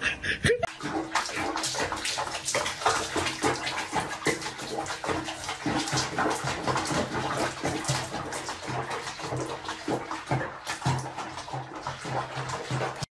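Water sloshing and splashing in a basin as a cat sits and moves in it during a bath, with irregular small splashes and drips.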